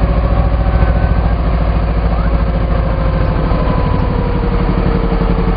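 Small riverboat's engine running steadily while the boat is underway, a low, even drone.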